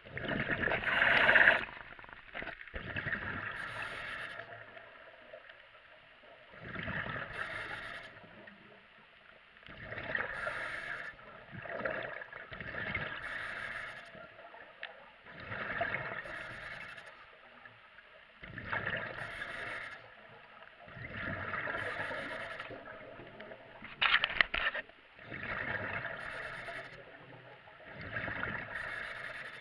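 A diver breathing through a regulator underwater: a rush of exhaled bubbles about every three seconds, with quieter gaps between breaths.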